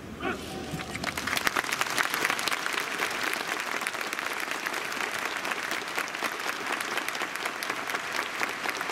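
Stadium crowd clapping in steady applause, many hands together, growing louder about a second in.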